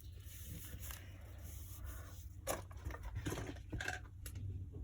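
Hands squeezing and kneading a sand-filled stress ball: soft grainy rustling and scraping, with a few louder squeezes in the second half.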